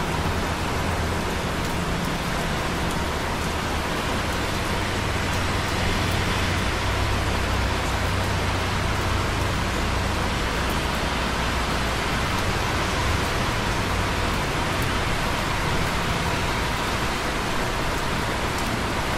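Light rain over busy traffic on wet roads far below a tower-block rooftop: a steady hiss of rain and tyres over a low traffic rumble, with rain dripping on concrete close by in small scattered ticks.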